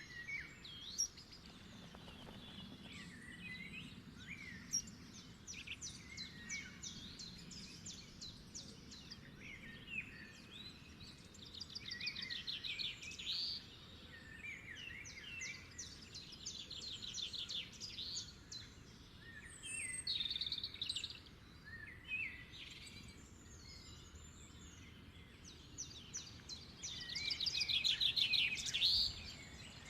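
Birds chirping and singing, with repeated rapid trills, over faint outdoor background noise; the loudest trill comes near the end.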